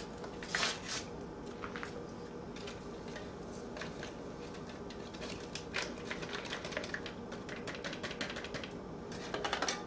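Crinkling and rustling of a foil protein-shake packet as the powder is shaken out of it, a dense run of small crackles and clicks.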